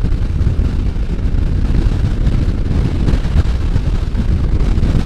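Strong crosswind buffeting the microphone on a moving Can-Am Spyder, a loud, unbroken low rumble in which the vehicle's running noise is buried.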